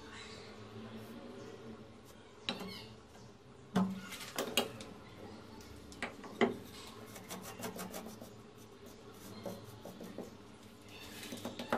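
Hand work on a granite countertop: several sharp knocks of a spirit level and granite pieces being set down on stone in the first half, then quieter scraping and fine ticking as a wooden strip works the sand-and-cement mortar.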